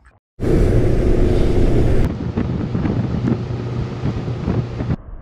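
Motorboat running under power: a steady engine hum and rush of hull and water, with heavy wind buffeting on the microphone. It starts abruptly about half a second in and drops to a quieter level near the end.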